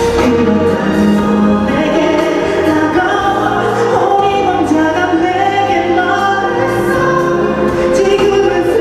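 A pop ballad performed live: singing over instrumental accompaniment, with sustained held notes.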